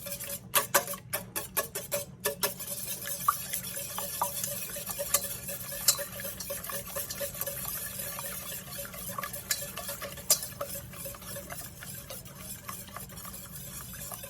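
Wire whisk beating eggs in a bowl: a fast, continuous clatter of the wires against the bowl, with a few louder knocks in the first couple of seconds.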